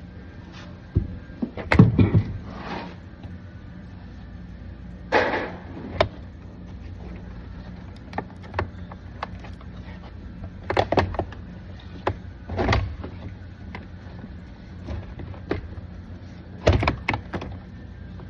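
Scattered clicks, knocks and short scraping rattles of hand tools and plastic trim as a car door panel is taken apart, over a steady low hum.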